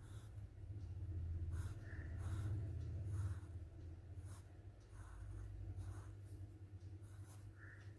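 Pencil scratching on paper in short, uneven strokes, about one a second, over a low steady hum.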